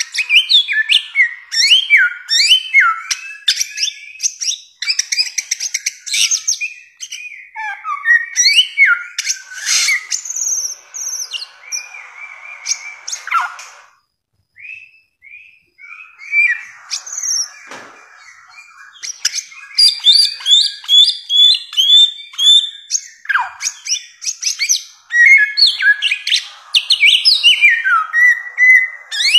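Bare-throated whistler (samyong) singing a long, fast string of varied whistled notes, many sliding up or down in pitch. The song breaks off for about a second roughly halfway through, then starts again.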